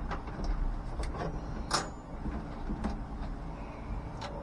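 A few light clicks and knocks, the sharpest about halfway through, from a drill and its bits being handled while a smaller bit is swapped in.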